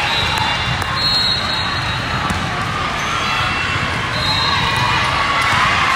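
Steady din of a large sports hall during volleyball play: volleyballs being struck and bouncing on the surrounding courts, mixed with the chatter of players and spectators.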